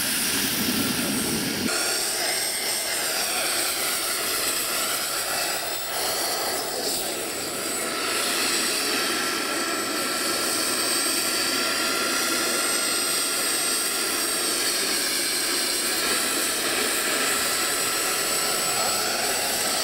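Turbine-powered RC model helicopter in flight: the small gas turbine gives a steady high whine over a rushing noise, the pitch wavering gently up and down as the helicopter moves about.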